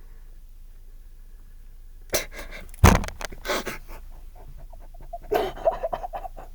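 Breathy, panting vocal sounds from a person close to the microphone, in two short spells about two and five seconds in, the louder one near three seconds.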